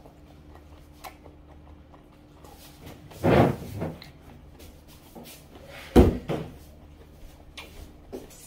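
Two loud knocks: a scuffing bang about three seconds in and a sharper, louder bang about six seconds in, with faint small clicks between.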